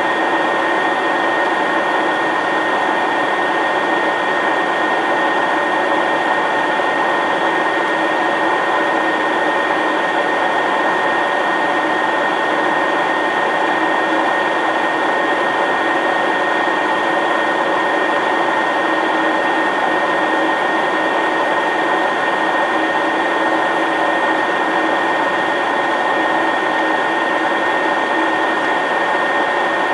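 Steady cockpit noise of an Eclipse 500 very light jet on final approach: its twin Pratt & Whitney PW610F turbofans and the airflow make an even rushing hum with a constant high whine over it.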